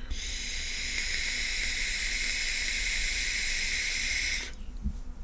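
A long draw on an eLeaf Melo tank on an iStick 30W: a steady airy hiss of air pulled through the tank's airflow and past the firing 0.5-ohm coil. It lasts about four and a half seconds and stops abruptly.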